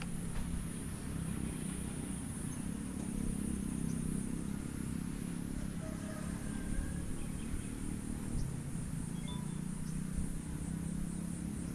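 Mountain bike rolling down a concrete path: a steady low rumble of tyres on the surface, with a few light clicks from the bike. A steady high-pitched buzz runs over it.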